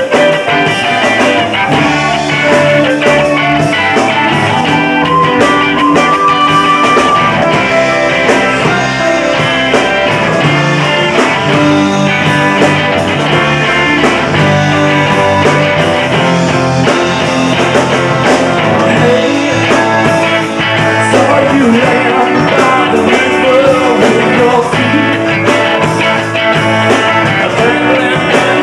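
Live rock band playing, with keyboards and electric guitar over bass guitar and drums.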